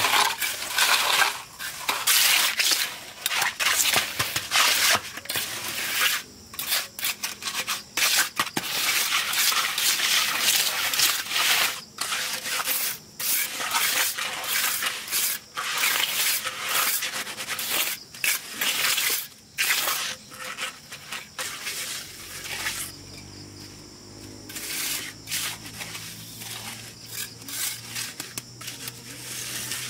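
Repeated rough scraping and rubbing strokes on a hard surface, coming irregularly one after another. About two-thirds of the way through they grow quieter and a low steady hum joins in.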